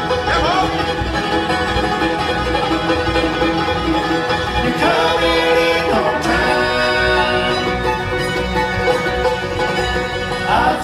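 Bluegrass band playing live, with banjo, fiddle, mandolin, guitars and dobro over a steady driving beat. Sliding notes rise in pitch near the start, twice around the middle and again near the end.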